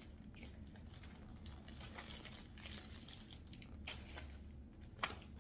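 Clothing packaging crinkling and rustling as it is handled and pulled open to unpack a pair of jersey trousers, with scattered small clicks and one sharper snap about five seconds in.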